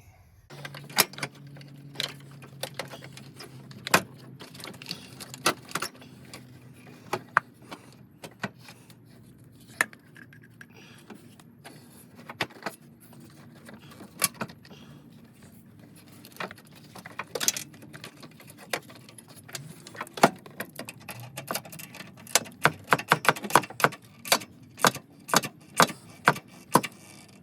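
Hand tools and metal parts clinking under the hood: scattered sharp metallic clicks and knocks, then a quick, fairly even run of clicks over the last few seconds. A faint low hum runs beneath the first third.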